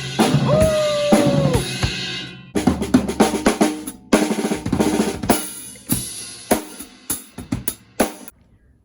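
A single held note that falls in pitch at its end, then a drum kit playing a busy beat with snare, kick and cymbals for about six seconds, cutting off suddenly near the end.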